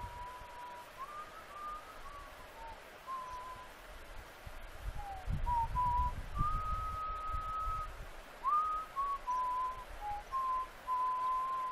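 A person whistling a slow, wandering tune: single clear notes, some held for a second or more, others sliding up or down between them. A low rumble comes in about halfway through.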